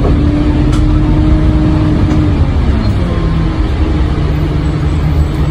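Isuzu Erga (2KG-LV290N3) city bus driving, heard from inside the cabin: a steady diesel engine drone over road noise. The engine note drops about halfway through as the revs fall.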